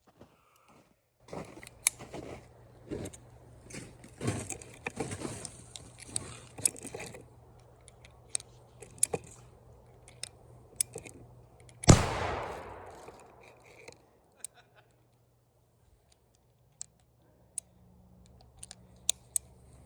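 Clicking and rattling of a gun and its ammunition being handled, then a single gunshot about twelve seconds in, its echo fading over a couple of seconds, followed by a few faint clicks.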